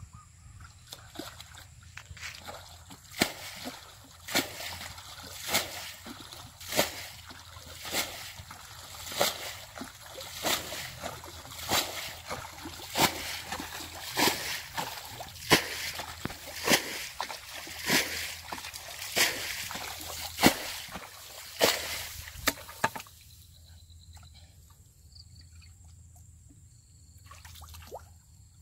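Splashing in shallow, muddy water as a person wades and works a fishing net: a sharp splash roughly every second and a bit, in an even rhythm, that stops a little over 20 seconds in, leaving only faint sloshing.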